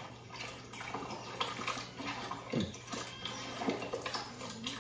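Wet squelching and sloshing of mutton pieces being mixed into a thick curd marinade in a bowl, with a few small clicks.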